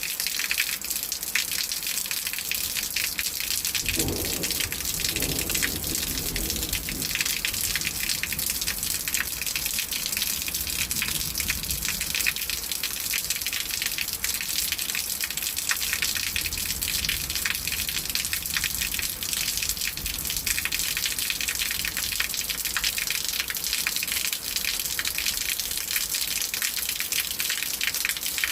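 Heavy rain falling steadily, a dense hiss of drops. About four seconds in, a low rumble of thunder sets in suddenly and fades away over several seconds.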